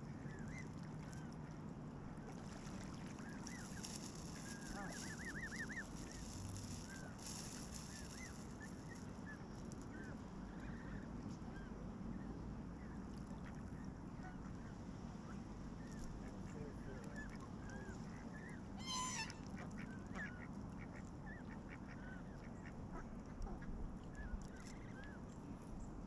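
Canada geese honking and calling at intervals, fairly faint, over a steady low background noise, with one sharper, louder call about two-thirds of the way through.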